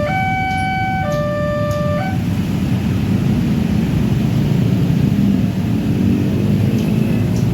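Railway level-crossing gate siren sounding a two-tone high-low alternation, each tone held about a second, then cutting off about two seconds in. After it, a steady low rumble of passing vehicles.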